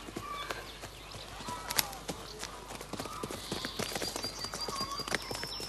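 A rapid, irregular clatter of sharp knocks, with faint distant voices.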